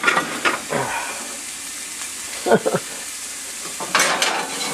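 Food frying in a pan with a steady sizzle. Over it come a few sharp clatters near the start and again about four seconds in as a cover is handled.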